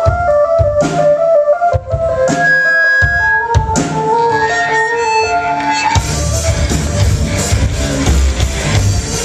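Live rock band's intro music: a melody of high single notes over scattered hits, then about six seconds in the full band with drums and bass comes in.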